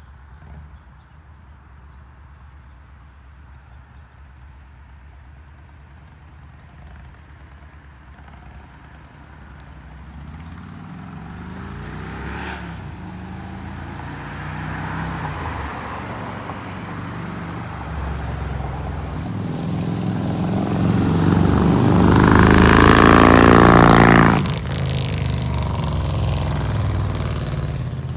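Harley-Davidson Street Glide V-twin with SVT Jackhammer exhaust pulling away through the gears. Faint at first, it grows steadily louder, rising and falling in pitch with each shift, is loudest about three-quarters of the way through, then drops off suddenly and runs on more quietly.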